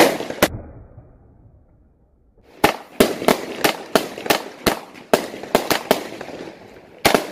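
Fireworks and firecrackers going off: two loud bangs, a lull of about two seconds, then a rapid run of sharp bangs, two or three a second.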